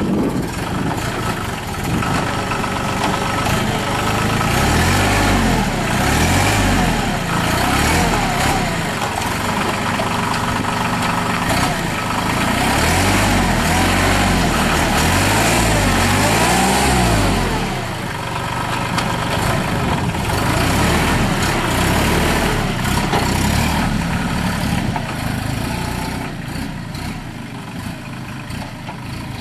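Mahindra 3616 compact tractor's diesel engine running, its pitch rising and falling again and again as it is revved up and down while the tractor is worked, then easing back toward the end.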